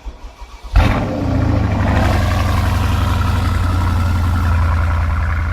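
A car sound: a sharp knock, then a loud, steady low drone with a hiss above it.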